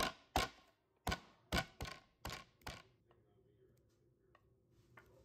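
About seven sharp knocks in quick, uneven succession over the first three seconds, each ringing briefly, followed by a few faint small clicks.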